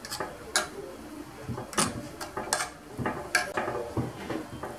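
A metal spoon scraping and tapping against a glazed earthenware dish while tossing steamed vermicelli: irregular short scrapes and clicks, roughly one or two a second.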